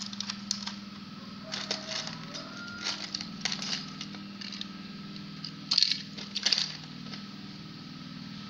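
Small plastic toys clicking and rattling against a clear plastic egg tray as they are handled and set into its cups, in several short clusters of clicks, the loudest about six seconds in. A steady low hum runs underneath.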